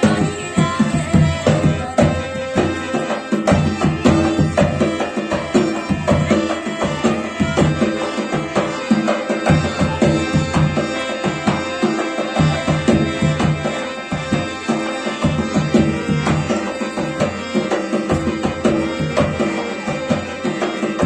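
Instrumental break in a Rajasthani folk bhajan: a fast, steady hand-drum rhythm under held melody notes, with no singing.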